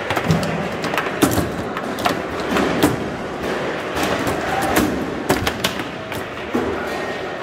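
Foosball in play: the hard ball struck by plastic players and the rods knocking on the table, about a dozen sharp, irregular clacks over a steady hall background.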